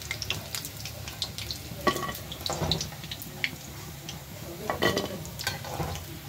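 Chana dal cakes (dhoka) shallow-frying in hot oil in a kadai: a steady sizzle full of sharp crackles and pops, with the scrape and clink of a metal spoon lifting the fried pieces out of the pan.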